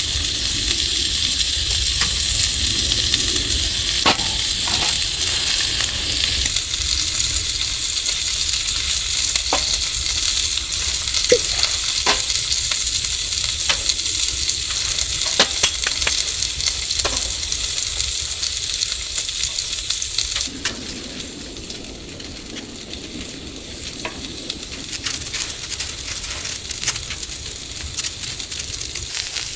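Food sizzling in a frying pan, with scattered sharp clicks of a utensil stirring or scraping. The sizzle quietens about two-thirds of the way through.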